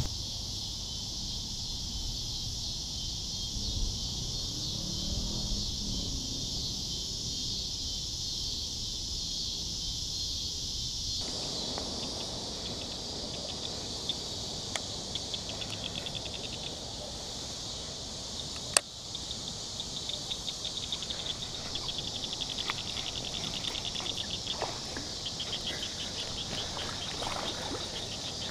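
A steady, high-pitched chorus of insects at a summer pond's edge, with rapid ticking joining in over the second half and a single sharp click about two-thirds of the way through.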